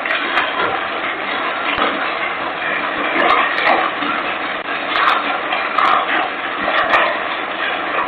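Large structure fire burning close to a Ring doorbell camera's microphone: a loud, continuous rushing noise with sharp crackles and pops breaking through it every second or so.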